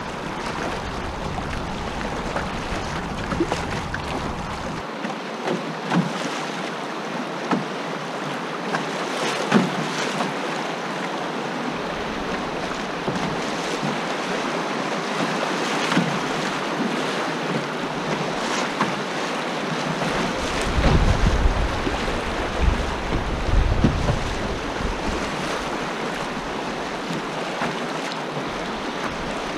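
Fast river current rushing and splashing around a canoe running choppy riffles, with scattered short splashes against the hull. A stretch of wind rumble on the microphone past the middle is the loudest part.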